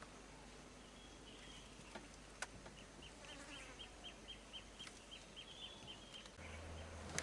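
Faint rapid chirping: a run of short, high chirps at about four a second, with a single sharp click about two and a half seconds in. A low steady hum comes in near the end.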